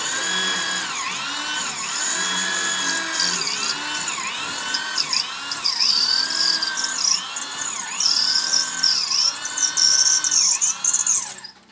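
A corded electric hand drill running under load. Its motor whine dips and recovers in pitch about once a second as the bit bites and frees, with a harsh grinding hiss from the cutting that grows louder from about halfway. It cuts off just before the end.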